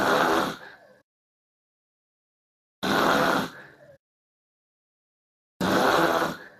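A man snoring loudly: three harsh, rasping snores about three seconds apart, each lasting about a second, heard over voice chat with dead silence between them.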